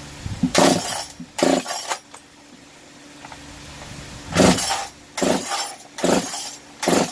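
Recoil starter of a Makita DPC7321 two-stroke concrete cut-off saw being pulled again and again, about six short pulls: two, a pause, then four more. The engine cranks but never catches; the owner suspects the ignition coil.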